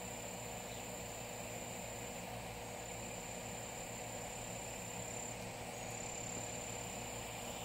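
Steady high-pitched insect drone that drops out briefly twice, over a faint steady low hum.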